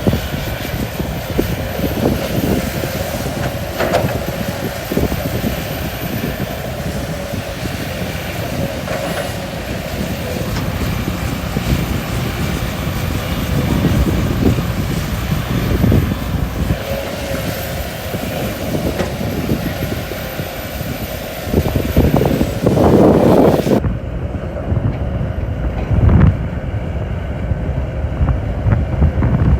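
Large crawler excavator at work: diesel engine running under load with hydraulics, and irregular clanks and thuds from the bucket and earth, loudest about three-quarters of the way through.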